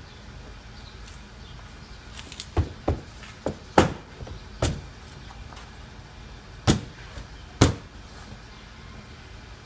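Door trim panel of a Nissan Murano Z51's front door being pressed home, its retaining clips snapping into the door: about seven sharp snaps and knocks, irregularly spaced, starting about two and a half seconds in.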